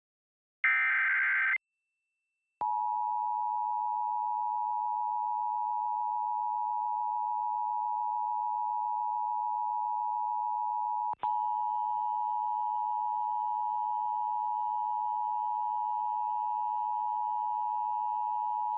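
Emergency Alert System broadcast: the last short data burst of the SAME header, then after about a second's pause the steady two-tone EAS attention signal, held for about 16 seconds to announce a tornado warning. About 11 seconds in there is a click, after which a faint hiss and extra tones join under the attention signal.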